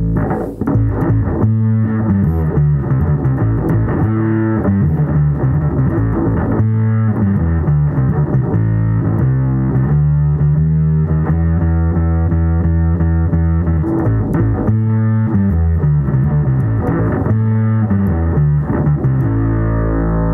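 Bass guitar played through a Maestro Brassmaster clone fuzz pedal: a run of heavily fuzzed notes starting about half a second in, with several notes held for a second or more in the middle, ending on a sustained note.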